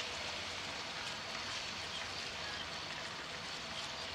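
Kvaerner Fjellstrand Flying Cat 40 high-speed catamaran ferry under way: a steady rushing hiss of water and engine noise, with a faint, steady high whine.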